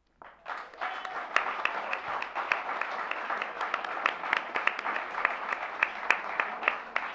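Audience applauding, many hands clapping together; it starts a fraction of a second in, just after a short silence.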